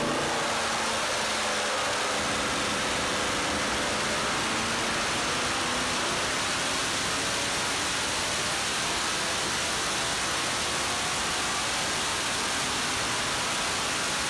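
Chevrolet LS3 6.2-litre V8 crate engine running steadily on an engine dyno: an even, loud wash of noise with little distinct pitch and no change in speed.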